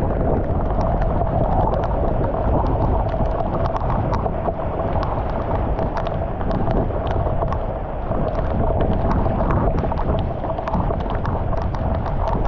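Floodwater rushing steadily across pavement into a curbside storm drain that has just been cleared of debris, a continuous low rushing with scattered light clicks and taps.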